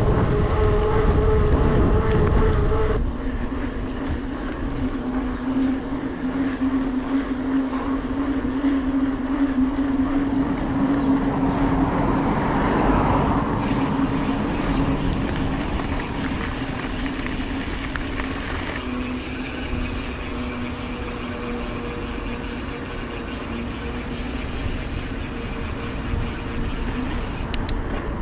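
Mountain bike rolling on pavement: the knobby tyres hum at a steady pitch over wind rumble on the mic. The hum drops to a lower pitch about three seconds in.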